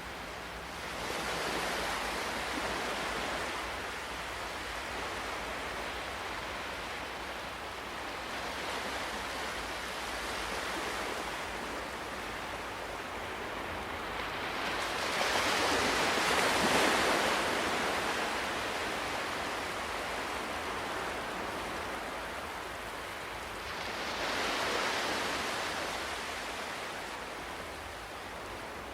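Ocean surf: waves washing in over a steady hiss of water, swelling every several seconds, the biggest surge about halfway through and another near the end.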